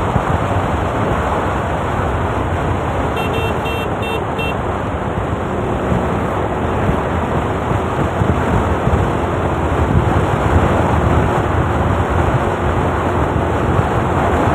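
Wind rushing over the microphone of a moving motor scooter, with riding noise underneath. About three seconds in comes a quick run of five or six short high beeps.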